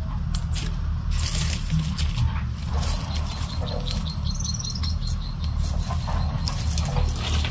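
Crackly rustling and footsteps on dry leaves and twigs, with a few short bird chirps about halfway through and a steady low rumble underneath.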